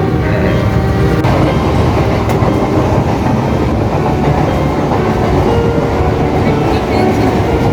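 Steady, loud rattling and road noise from a moving battery e-rickshaw (toto), heard from inside the open cab.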